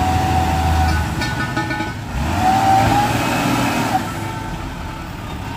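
Motor vehicle engines running on the road. A thin steady whine sits over the engine rumble for about the first second and again from about two to nearly four seconds in.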